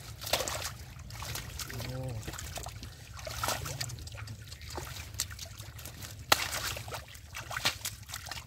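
Splashing and sloshing of shallow muddy water as a catfish is gripped by hand and wriggles, with many short sharp splats and trickling. A single sharp slap about six seconds in is the loudest moment.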